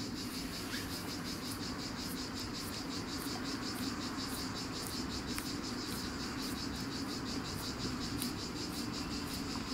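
Insects chirping outdoors: a steady high buzz with a rapid, even pulse of about three chirps a second.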